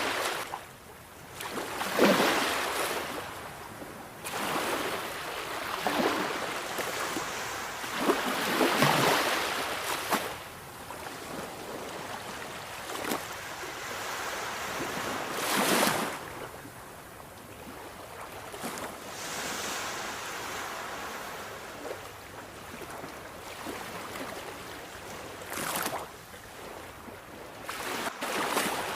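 Sea waves breaking and washing on the shore, rising to a surge of rushing hiss every few seconds with quieter wash in between.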